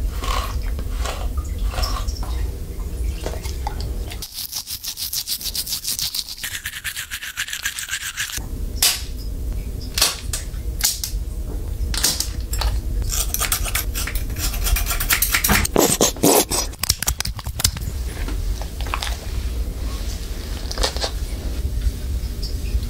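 Dog being groomed: a rubber bristle brush scrubs through its fur in quick strokes, then nail clippers snip at its claws with sharp clicks, with hands rubbing its coat.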